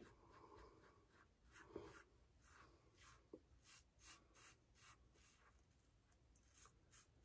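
Faint, scratchy short strokes of a Blackland Blackbird titanium safety razor cutting stubble through shave lather, about three strokes a second.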